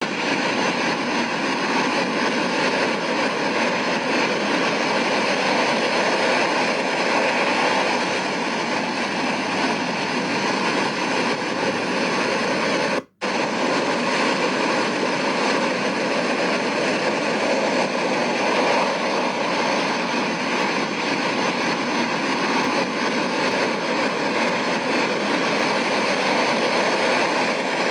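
Ocean waves making a steady roar, broken once by a brief total dropout about halfway through.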